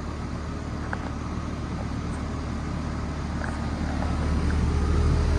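2011 Payne Performance Series 3-ton R22 air conditioner condensing unit running: a steady low hum from the compressor and condenser fan, growing slightly louder toward the end.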